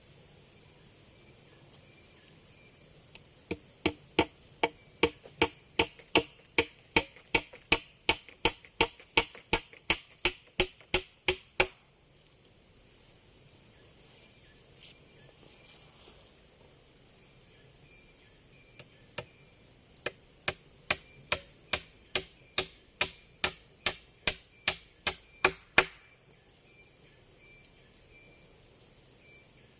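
Two runs of rapid, evenly spaced chopping strikes on wood, about three a second, each lasting several seconds with a pause between them. A steady high drone of forest insects runs underneath.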